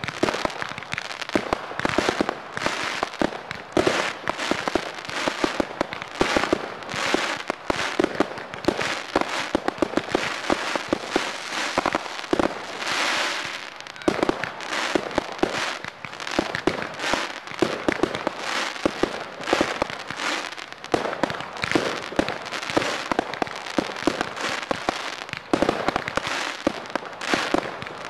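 Fireworks going off in rapid succession: a continuous run of bangs and crackling, with a brief hissing rush about thirteen seconds in.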